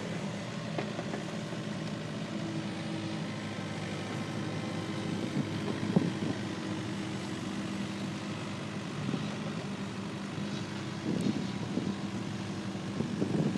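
Heavy earthmoving machine's diesel engine running steadily, with a few short knocks or clanks, the sharpest about six seconds in.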